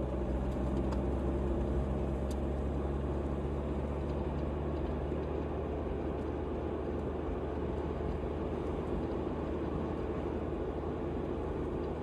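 Steady engine hum and tyre noise of a car driving along a paved road.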